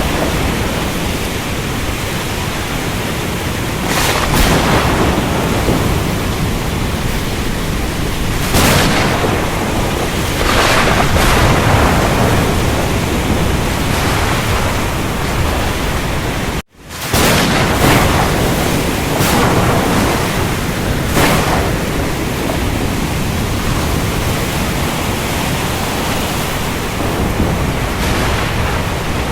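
Ocean storm: steady rain and surf with thunder, the noise swelling every few seconds. It cuts out for an instant about two-thirds of the way through, then resumes.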